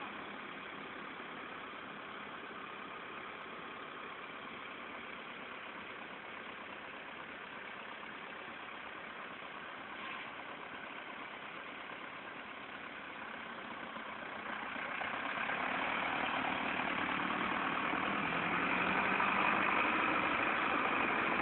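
Diesel engines of a Zetor 6340 and a Fiat 100-90 tractor running hard under load as the two tractors pull against each other in a tug-of-war, the noise growing louder about two-thirds of the way through.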